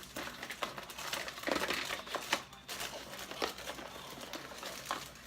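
Packaging crinkling and rustling as it is handled, with scattered small clicks and knocks; the rustling is loudest about one and a half to two seconds in.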